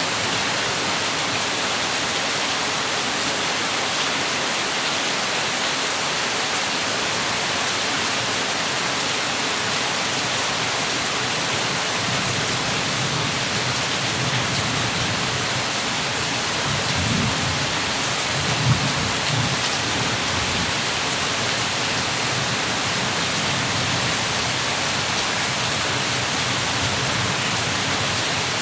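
Heavy rain falling in a steady, dense hiss. A low rumble of thunder builds up about midway and peaks with a sharper crack about two-thirds of the way through before fading.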